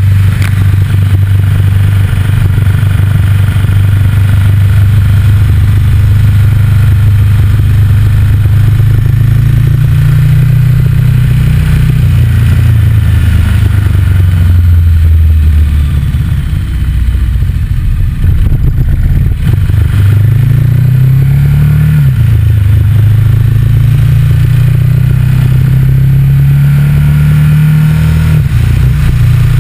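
Motorcycle engine running on the move, its note climbing and dropping several times as the bike accelerates and eases off through the gears, with heavy wind rumble on a microphone mounted low by the front fork.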